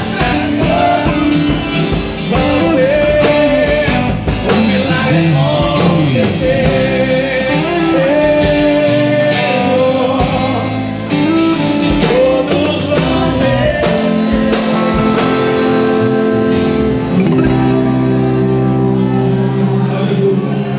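Gospel band music: a voice singing over guitar and band accompaniment, settling into long held chords in the last few seconds.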